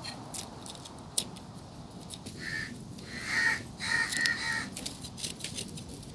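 A crow cawing several times in a short run through the middle, over faint scattered clicks.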